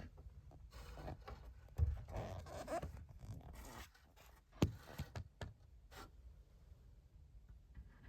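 Faint handling noise of hands and camera moving against plastic dashboard trim in a cramped space: soft rustling and scraping with a few light clicks and knocks.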